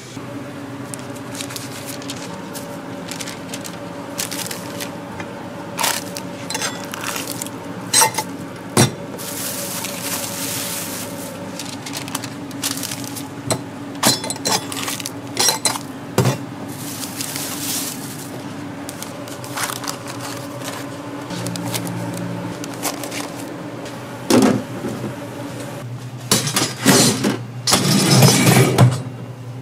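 Kitchen work with utensils and dishes: scattered clinks and knocks of metal and glassware over a steady machine hum. A few short bursts of hiss come through, the loudest near the end.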